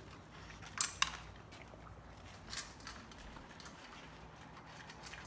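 Bullmastiff eating at its bowls: a few sharp clicks and clinks against the bowl, the two loudest close together about a second in, then fainter ones.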